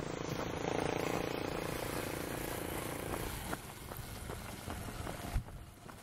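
A vehicle engine runs steadily for about three seconds and then drops away. After that, runners' footsteps strike a dirt path as short, separate thuds.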